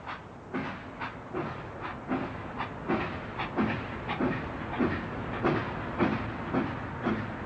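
Steam locomotive running with a steady rhythmic chuff, about three beats a second over a hiss of steam, growing a little louder.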